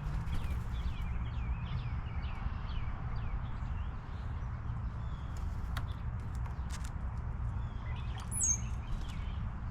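Birds chirping: a run of short, repeated chirps, then one high, falling whistle about eight and a half seconds in, with a few sharp clicks in between, over a steady low rumble.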